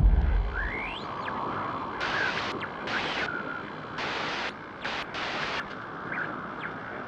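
Glitch and static sound effects for a distorting logo intro: a deep boom fades over the first second, then a bed of static with several sharp bursts of hiss, each about half a second, cutting in and out between 2 and 6 seconds, and a few swooping electronic tones.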